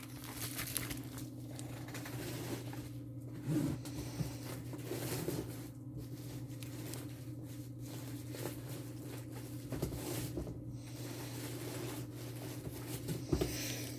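Faint rustling and crinkling from a diamond painting kit's packaging being handled and opened, with a few soft knocks, over a steady low hum.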